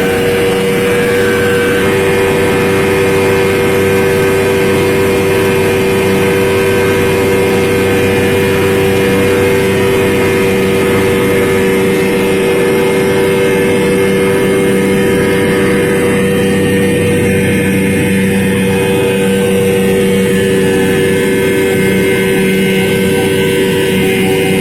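Vespa scooter engine mounted in an iron boat, running steadily at an even speed with a constant drone.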